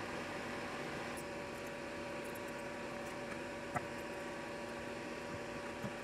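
Steady hum and hiss with faint steady tones, broken by a single sharp light click a little before four seconds in and a softer click near the end.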